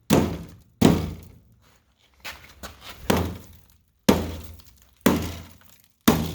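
Heavy blows struck repeatedly on a rusted steel school-bus stepwell, roughly one a second, each a sharp clang that rings off briefly. A few lighter knocks fall in a gap about two seconds in. The blows are knocking rust loose.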